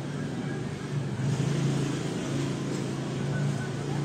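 A steady low hum under a faint, even background noise.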